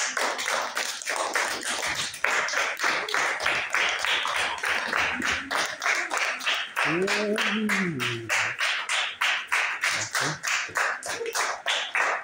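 Hands clapping in a steady, fast rhythm, about four claps a second, as a group applauds in class. A voice calls out briefly about two-thirds of the way through.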